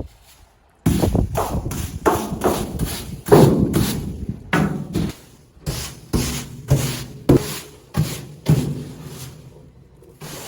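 Feed being scraped up by hand in quick, regular strokes, about two a second, each a short scrape with a thud.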